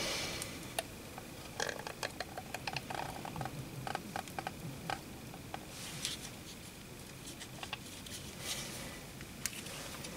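Quiet soldering: faint short hisses and crackle of solder flux melting as a soldering iron tip melts solder onto a thin copper strip, with scattered small ticks of the tip and solder wire touching the copper.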